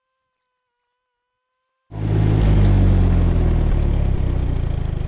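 Ditch Witch R65 trencher's engine running loud, cutting in suddenly about two seconds in after near silence. Near the end it eases a little into an even, low throbbing beat.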